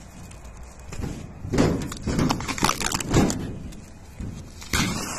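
Black plastic sheeting being ripped and pulled off a sign by hand, crinkling and tearing in irregular bursts, loudest about halfway through and again near the end.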